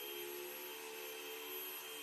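Hair dryer running steadily: a rush of air with a steady high whine from its fan motor.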